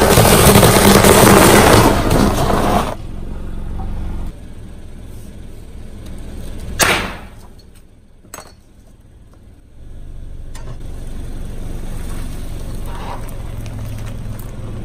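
Car tyre crushing hollow clay bricks, a loud gritty crunch lasting about three seconds. A single sharp bang comes about seven seconds in, then a low steady rumble of the car rolling slowly.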